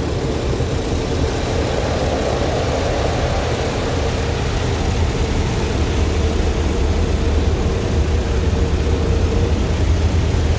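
Automatic car wash heard from inside the car's cabin: a loud, steady rush of water and wash equipment working over the roof and windshield, above a low rumble that builds slightly.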